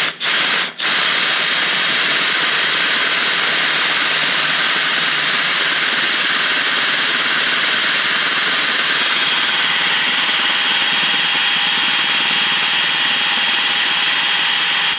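Cordless DeWalt drill with a 7/16-inch (11 mm) titanium bit drilling out a hole in an aluminum dirt-bike rim: two or three quick blips of the trigger, then loud, continuous drilling. A thin, steady whine joins about nine seconds in, and the drill stops right at the end.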